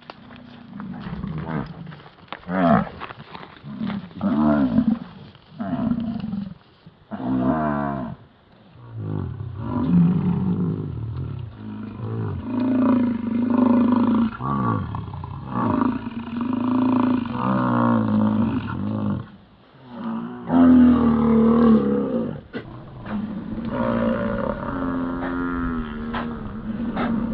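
American bison bulls bellowing in the rut: a long series of deep, drawn-out roaring calls, several overlapping, with short lulls between bouts.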